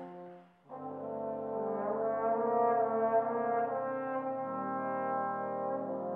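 A solo trombone and a trombone quartet play slow, sustained chords together. The sound breaks off briefly about half a second in, then a new chord enters and holds, shifting twice.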